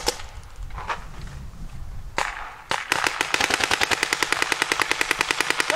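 Paintball marker firing: a few single shots, then from about three seconds in a rapid, even stream of shots at roughly ten a second.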